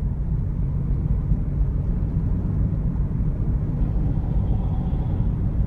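Steady low rumble of a car on the move, with road and engine noise.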